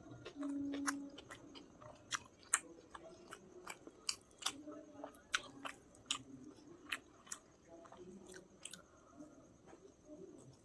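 Close-up chewing and mouth sounds of someone eating chicken biryani, with frequent sharp wet clicks and smacks. A brief low hum comes about half a second in.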